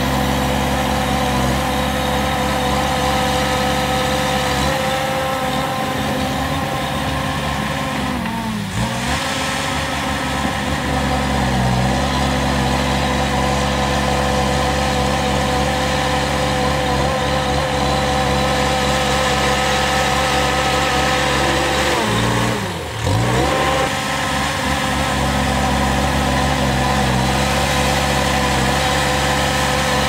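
Shantui crawler bulldozer's diesel engine running steadily while it pushes dirt. Its pitch sags and recovers twice, once about a third of the way through and more deeply about three-quarters through.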